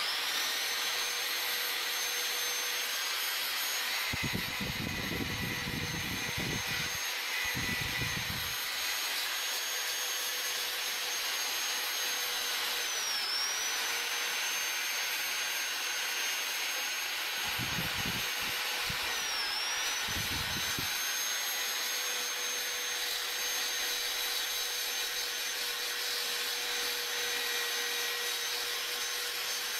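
Corded electric drill spinning a homemade sandpaper disc against the wood inside a charango body, sanding it smooth. The motor's steady whine dips briefly in pitch twice, and a rougher, lower rubbing noise comes and goes twice as the disc works the wood.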